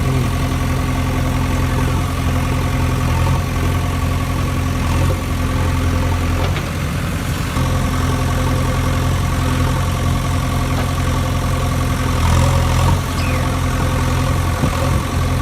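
An engine idling steadily with a low, even hum that dips briefly about halfway through.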